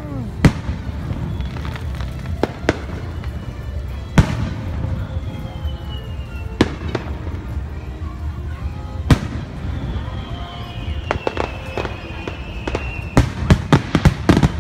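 Aerial firework shells bursting overhead, with sharp single bangs every second or two. A long falling whistle runs through the middle, and a quick run of crackling bangs comes near the end.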